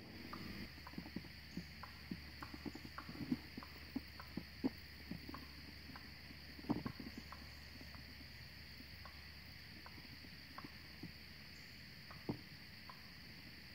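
An animal clucking: a run of short, sharp, irregular clucks, thickest in the first seven seconds and sparser after, over a steady chorus of insects.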